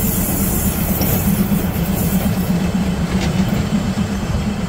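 Passenger train carriages rolling past at close range, their steel wheels running on the rails in a steady rumble.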